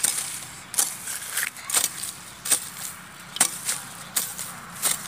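Hoe blade striking and scraping into dry ground and grass, stroke after stroke, about once every three-quarters of a second.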